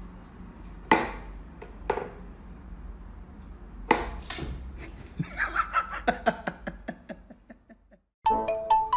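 Wooden whack-a-mole cat toy knocking and clacking as its pegs are pushed and a cat bats at the pop-up mice: three sharp knocks, then a quicker run of lighter ticks that fades out.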